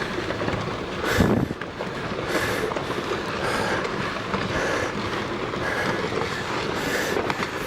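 Rockfall on a volcano slope: a continuous rumbling clatter of tumbling rocks, with a heavy thud about a second in.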